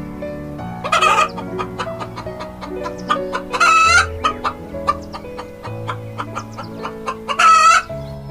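Three loud chicken calls, each about half a second long, about a second in, near the middle and near the end. Light background music with plucked notes plays under them.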